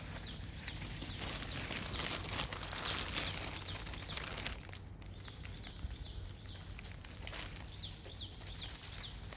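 Rustling in grass and dry leaves, loudest about two to three seconds in, with scattered light clicks. Over the second half come quick runs of short, high chirps, each falling in pitch.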